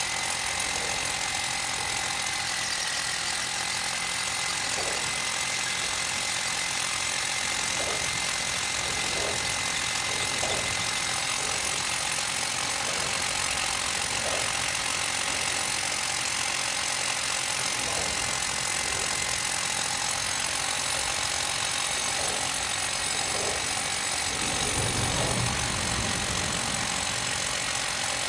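Hammer drill boring into concrete, running steadily and without a break.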